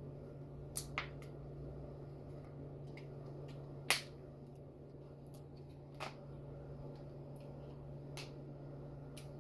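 Scattered sharp clicks and light knocks of things being handled while preparing food, the loudest about four seconds in, over a steady low hum.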